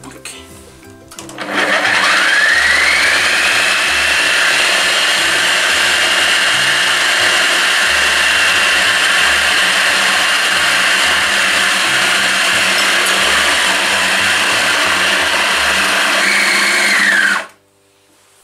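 Kenwood food processor motor starting up, its whine rising to a steady high pitch, then running steadily for about fifteen seconds as it blends ground almonds and sugar with egg white into almond paste. Near the end it is switched off and the whine falls away.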